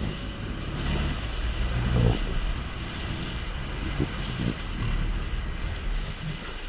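A boat's engine rumbling steadily under wind buffeting the microphone.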